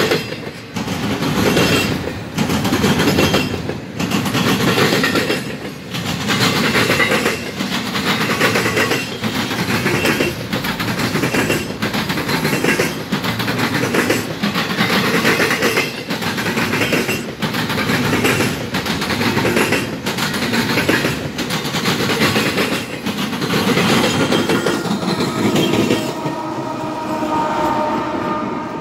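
Double-stack container freight train rolling past close by: a loud rumble and clatter of steel wheels on the rails that swells and dips every second or two as the cars go by. Near the end the clatter eases and the steady hum of a passing CN diesel locomotive comes in.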